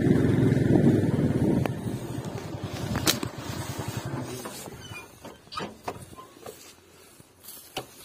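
Motorcycle engine running, dying away after about four seconds. After it come a few sharp crackles and rustles of dry grass.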